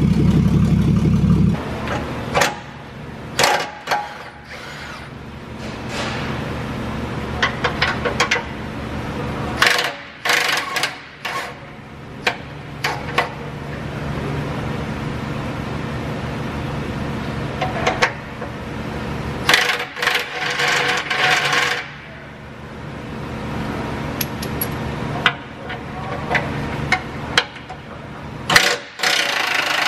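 A pickup truck's engine runs for about the first second and a half, then stops abruptly. After that, metal hand tools clink and a ratchet clicks in irregular bursts as bolts are worked overhead under the truck, over a low steady hum.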